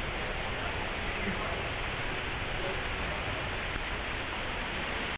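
Steady rushing splash of falling water, heard close to the microphone.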